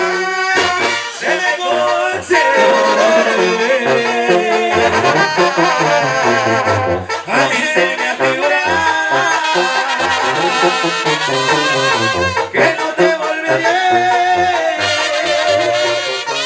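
Live Mexican banda playing: trumpets and trombones carry the tune, with saxophones and clarinets, over a sousaphone bass line and drums.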